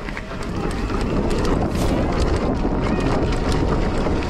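Mountain bike riding a loose, rocky trail: wind buffets the microphone and the tyres rumble over stones, with many small clicks and rattles from gravel and the bike. The noise swells over the first second or so as the bike picks up speed, then holds steady.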